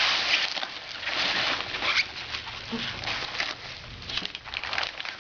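Plastic bubble bag and ice blanket rustling and crinkling as they are handled, with irregular small crackles and taps.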